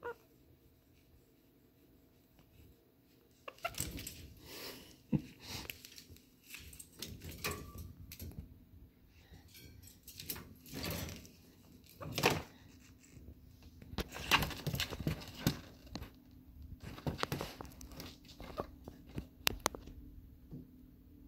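Wire cage rattling and knocking, with scrabbling, as a black-tailed prairie dog in a harness climbs on its bars. The irregular clatter starts about three and a half seconds in, after a quiet start, over a low steady hum.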